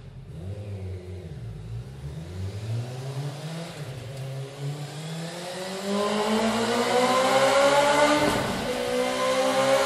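Honda CBR1000RR inline-four engine heard through its stock exhaust, revving with its pitch rising steadily over several seconds and getting louder. There is a short drop about eight seconds in, then it climbs again.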